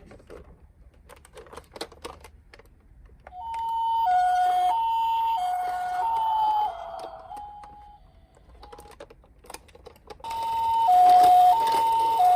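Toy ambulance minicar's electronic two-tone siren, switching between a high and a low note about every two-thirds of a second, in two stretches: from about three seconds in to about seven, its pitch sagging as it ends, and again from about ten seconds in. Light clicks and taps in the gaps between.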